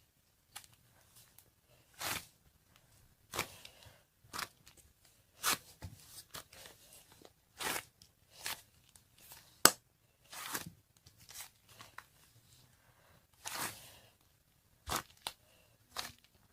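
A firm peach crunching: short, crisp crunches, one every second or so, some in quick pairs, the sharpest near the middle.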